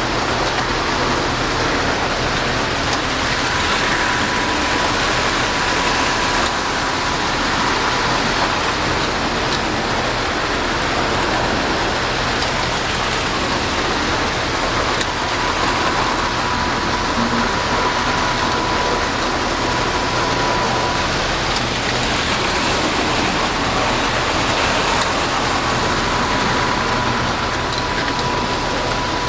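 Several Lionel postwar O27 toy trains running together on three-rail tinplate track, a steady rattling rumble of wheels and motors. A thin whine comes and goes a few times.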